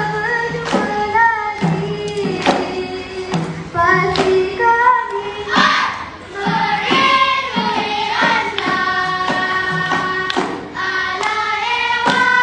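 A seated group of children singing a folk song together in unison with held, gliding notes, punctuated by irregular sharp percussive hits.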